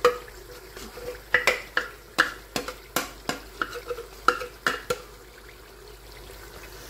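A metal spoon tapping and scraping against a blender jar and the rim of a pressure-cooker pot as thick spinach purée is scraped into it: a quick run of sharp clinks over the first five seconds, then quieter.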